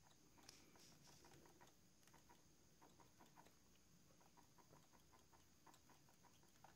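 Barely audible, irregular light ticks and scratches of a small paintbrush being rubbed over a wetted plastic model part, lifting the paint off a hairspray layer to make chips.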